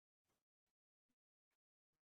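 Near silence: a gap between narrated sentences with no audible sound.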